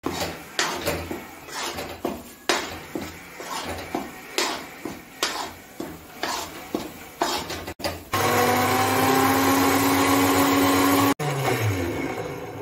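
A long metal spoon scrapes and knocks around a steel kadhai, about two or three strokes a second, stirring wheat flour as it roasts. Then an electric mixer grinder runs steadily with a slightly rising whine, grinding roasted turmeric to powder. It is switched off near the end and its motor spins down with a falling hum.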